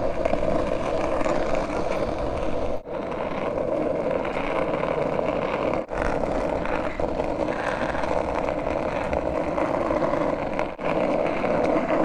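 Skateboard wheels rolling fast on an asphalt path, a steady rumble mixed with wind on the microphone, dipping out briefly three times.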